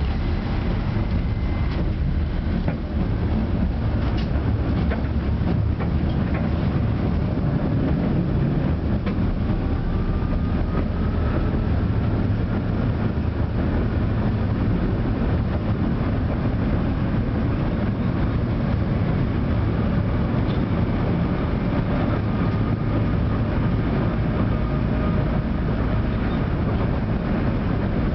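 Tram running along its rails, heard from inside the passenger car: a steady rumble of wheels on track. A faint whine rises slowly about a third of the way in.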